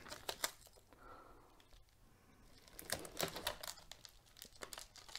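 Faint crinkling of a plastic poly mailer being handled, a near-quiet stretch first, then a run of short crackles from about three seconds in.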